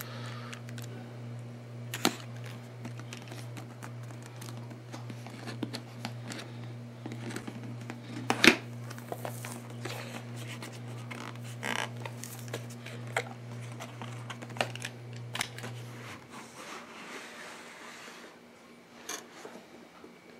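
Cardboard and plastic packaging being handled and opened: scattered clicks and taps with some crinkling and tearing, one sharper click about eight seconds in. A steady low hum runs underneath and stops about sixteen seconds in.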